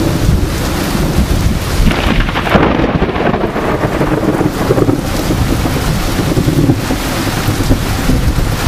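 Thunder rumbling after a lightning flash over the steady hiss of heavy rain and gusting wind, a severe supercell thunderstorm with its rotating circulation passing overhead. The thunder swells about two seconds in.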